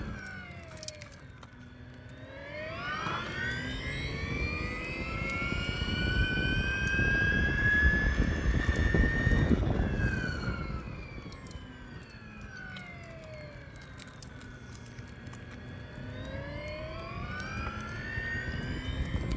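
Piaggio Vespa Elettrica scooter's electric motor whining. The whine climbs in pitch for several seconds as the scooter accelerates, falls away as it slows, then climbs again near the end, over road and wind rumble.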